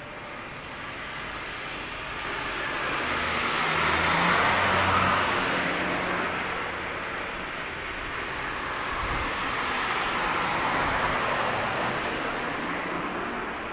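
Road traffic: a car passes, its tyre and engine noise swelling to a peak about four seconds in and fading. A second, slightly weaker pass follows near eleven seconds.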